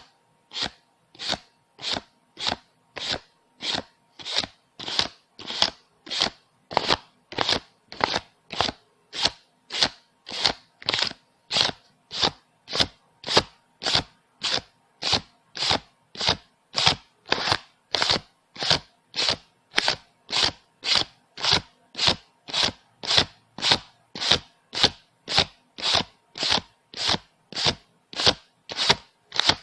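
Paper banknotes being counted by hand one at a time, each bill flicked with a short crisp swish, in an even rhythm of a little under two a second.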